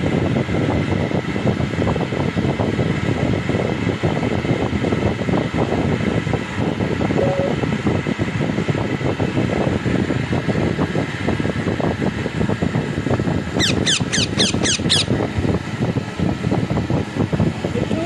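Steady rushing noise, like air blowing across the microphone. About three-quarters of the way through comes a quick run of about six sharp, high squeaks, each falling in pitch.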